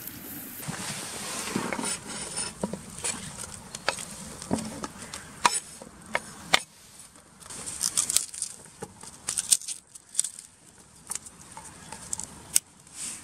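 Food preparation sounds: a knife scraping chopped onion off a wooden cutting board into a cast-iron pot of raw chicken, the pieces pattering in, then garlic cloves being broken apart and peeled on the board near the end. Scattered clicks and taps throughout.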